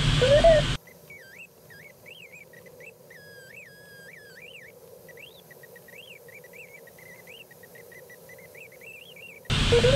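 Loud cockpit air noise cuts off abruptly under a second in, leaving a faint thin electronic tone that warbles quickly up and down in pitch, breaking off and resuming, like a glider's audio variometer in rough air, over a faint hiss. The loud air noise returns abruptly near the end.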